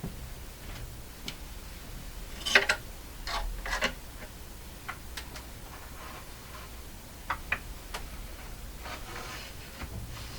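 Scattered light clicks and knocks of small hard parts being handled and fitted into a radio cabinet, the push buttons being set in place, with a cluster of sharper knocks between about two and a half and four seconds in.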